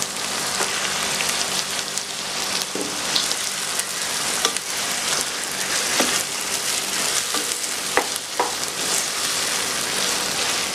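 Raw boneless chicken pieces sizzling in hot oil and sautéed onions in a wok, the steady frying hiss broken by scattered pops and the scrape of a wooden spatula stirring them.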